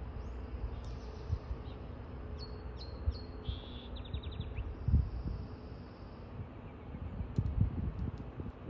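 Small birds chirping in the background: a few short high calls and a quick trill in the first half, then a longer high note in the middle. Low thumps come and go, loudest about five seconds in and again near the end.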